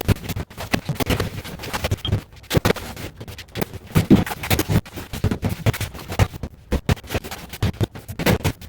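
Irregular scraping and knocking of hand work on a building job, uneven strokes with no steady rhythm.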